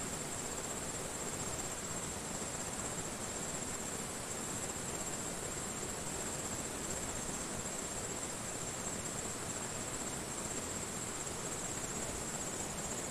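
Insects trilling in one steady, unbroken high tone over the even rush of a flowing river.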